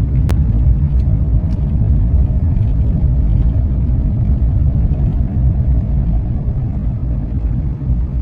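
Steady, loud low rumble of road traffic, with a sharp click about a quarter second in.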